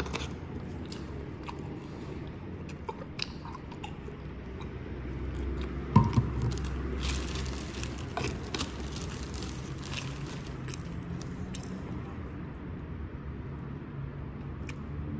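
A single knock about six seconds in, then a thin plastic bread bag crinkling and rustling in scattered bursts for several seconds as a slice of bread is pulled out of it, over a steady low hum.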